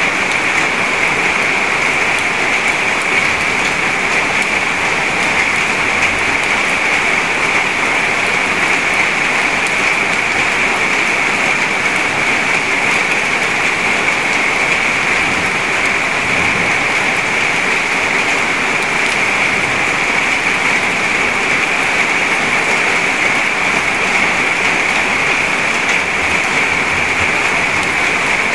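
Heavy rain falling into a puddle: a steady, dense hiss of drops splashing on water.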